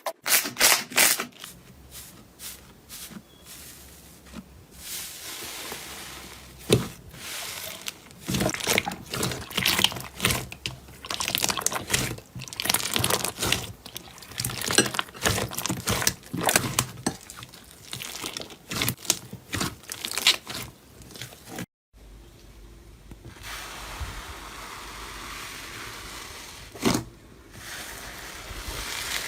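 Slime being squeezed and pressed by hand: dense sticky crackling and popping, then after a sudden cut about two-thirds of the way in, softer and steadier squishing.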